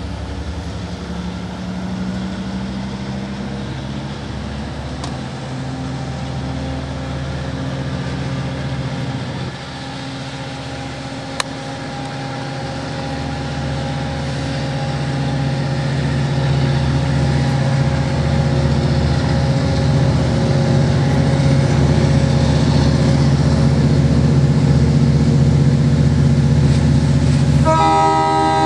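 Long Island Rail Road diesel locomotive engine running with a steady low drone; after an abrupt change about ten seconds in, an approaching train's engine grows steadily louder, and the locomotive's horn sounds in the last second.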